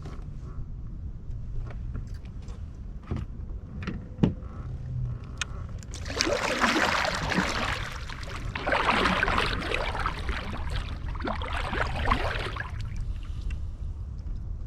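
Kayak paddle strokes splashing through the water in three bursts, after a few light knocks against the hull, with wind rumbling on the microphone.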